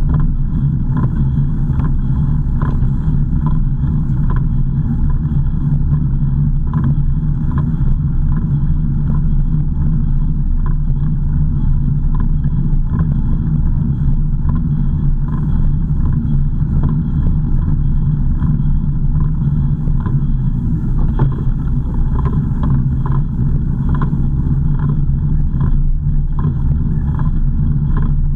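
Car engine and road noise heard inside a moving car: a steady low hum with faint regular ticks about once a second.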